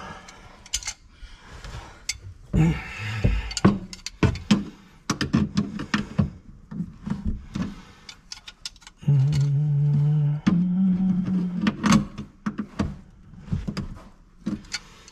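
Tools and metal and plastic fittings clattering and knocking, in irregular clicks and thunks, during work on a sink drain and disposal mount. About nine seconds in, a steady hum starts, steps up in pitch a second and a half later, and stops about a second after that.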